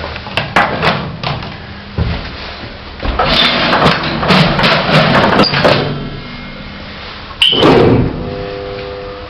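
Old lift in operation: doors and car clattering and rumbling with sharp clicks. A sudden loud clunk comes about seven and a half seconds in, followed by a steady hum.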